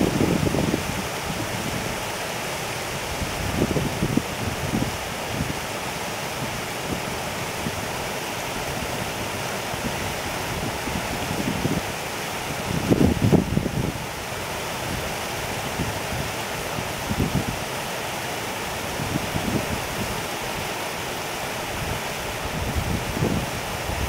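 Shallow stream babbling steadily over a riffle, with a few brief low rumbles of wind on the microphone, the strongest about 13 seconds in.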